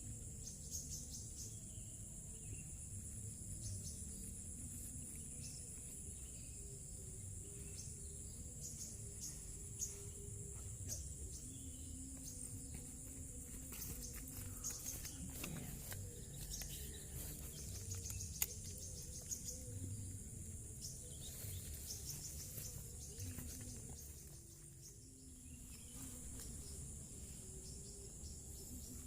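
Faint evening chorus of crickets, a steady high-pitched pulsing trill, over a low rumble of background noise, with a couple of small ticks.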